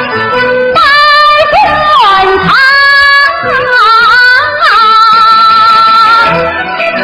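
Yue opera aria sung by a woman in the male xiaosheng role, with drawn-out, wavering notes and one long held note near the end, over instrumental accompaniment.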